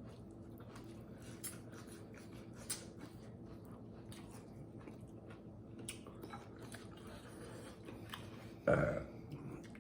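Faint chewing and small mouth and eating clicks over a steady low hum, with a louder short sound about a second before the end.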